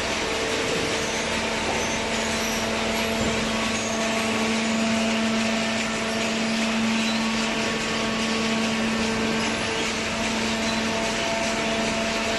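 Fully automatic horizontal cardboard baler running: a steady machine hum with a constant drone over broad mechanical noise.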